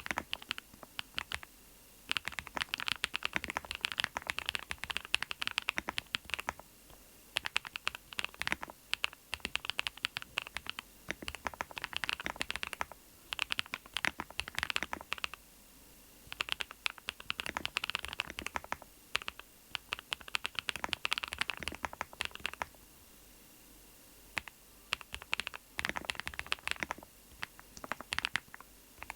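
Typing on a NuPhy Node75 HP mechanical keyboard: rapid runs of key clicks and clacks lasting a few seconds each, broken by short pauses, the longest about two seconds near the end.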